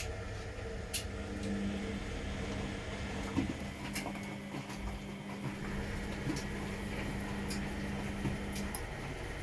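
Washing machine running a hot wash test cycle: a steady low rumble with a motor hum that starts about a second and a half in and stops near the end, and a few light clicks.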